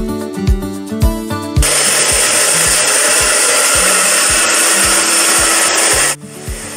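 Pet grooming dryer blowing a steady rush of air, starting about a second and a half in and cutting off suddenly near the end. Background music with a steady beat plays throughout.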